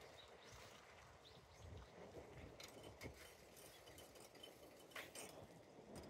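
Near silence: faint outdoor ambience with soft footsteps on pavement and a couple of faint clicks, one midway and one near the end.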